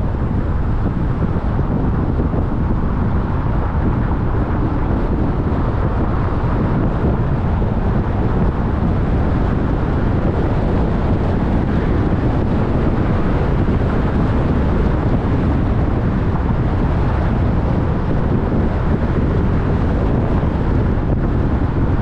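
Steady road noise from a moving car: a low rumble of tyres and engine with wind noise, even throughout, with no sharp events.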